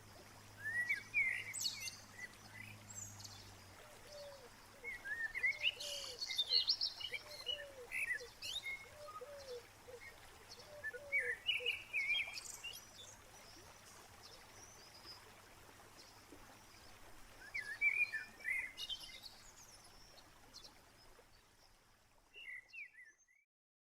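Wild birds singing, with several short bursts of chirping song and, in the middle, a lower call repeated in quick succession; everything fades out near the end.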